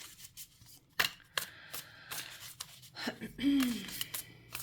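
Tarot cards being handled: a scatter of light clicks and taps as cards are drawn and laid out. A brief hummed voice sound comes about three and a half seconds in.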